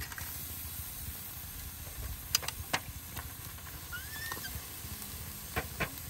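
Steaks sizzling on a wire grill grate over hot charcoal, with a few sharp clicks of metal tongs against the grate as the meat is turned: two a little past two seconds in and two more near the end.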